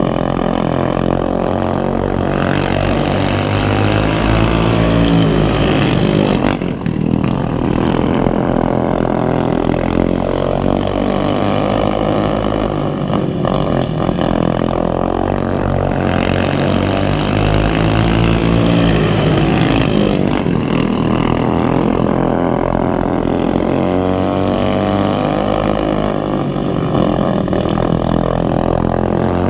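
Racing lawnmower engines running hard. Their pitch rises and falls in long sweeps about every six or seven seconds, as in laps of a short track.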